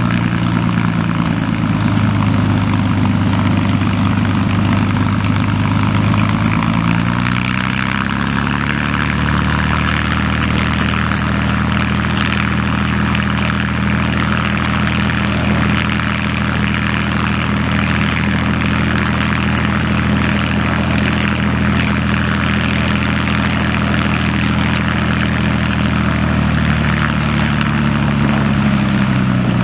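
P-51D Mustang's V-12 Merlin piston engine running on the ground at low speed with its propeller turning. About seven seconds in the engine speed rises a little and holds steady, then drops back near the end.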